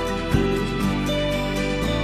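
Soft background music of sustained, held notes, the chord changing about every half second to a second, with one short click a third of a second in.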